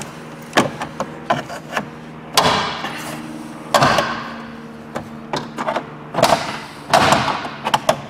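Plastic retaining clips of a Fiat 500 door trim panel snapping free one after another as the stiff panel is levered and pulled off the door. There are about eight sharp cracks, two of them louder with a brief rattle of the plastic panel.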